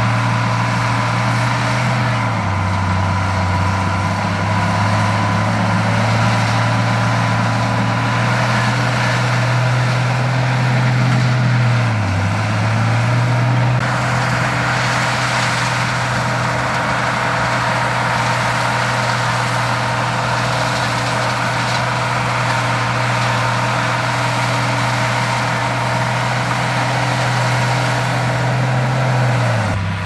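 Big diesel engine of heavy earthmoving machinery running steadily, its engine speed dropping about two seconds in, dipping briefly and picking up again around the middle, and dropping again near the end. A steady high whine runs alongside.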